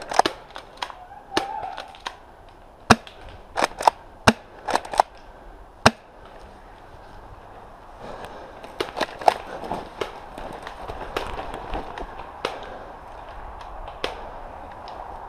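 Airsoft gunfire: about a dozen sharp, irregular pops and cracks over the first six seconds. After that comes a steady rustling of forest undergrowth with scattered twig snaps as someone moves through it.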